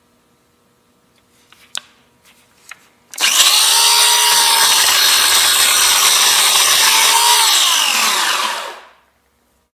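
Harbor Freight 14-inch 120 V electric chainsaw starting after a few small clicks, running at a steady speed while cutting into a block of wood held in a vise, then falling in pitch as it winds down and stops near the end.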